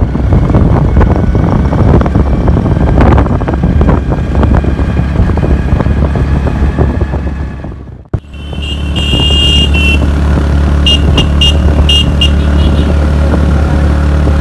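Motorcycle riding with the engine running and wind on the microphone, first over a rocky dirt track with irregular knocks and jolts. About eight seconds in the sound cuts abruptly to a smoother road, where the engine's steady low drone is clearer.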